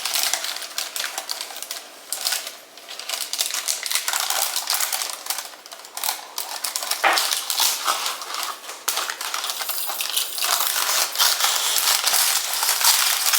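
A spoon scraping and tapping against a bowl and mold with many quick, irregular clicks, as melted chocolate is scooped out and spread into a parchment-lined mold.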